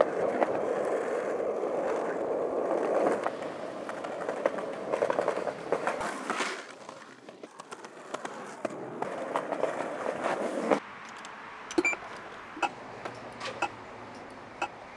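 Skateboard wheels rolling with a steady rough grind over coarse pavement, broken by sharp clacks of the board hitting the ground. About eleven seconds in the rolling stops suddenly, leaving a quieter background with a few scattered clicks.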